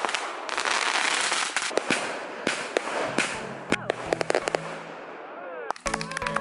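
Fireworks going off: a dense crackle with many sharp bangs, thinning out after about three seconds. Music comes in near the end.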